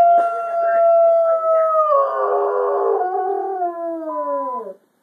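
A goldendoodle howling: one long howl held at a steady pitch for about two seconds, then dropping lower and sliding down until it breaks off near the end.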